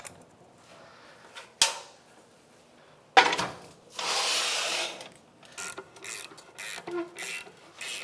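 Metal workshop lift clanking and scraping as it is pushed under the dirt bike, with about a second of rasping after a sharp knock. It is followed by a run of short, quick ratchet-wrench strokes.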